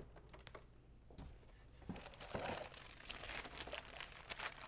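Clear plastic packaging bag crinkling as it is handled and lifted, a few scattered crackles at first, growing busier after about three seconds.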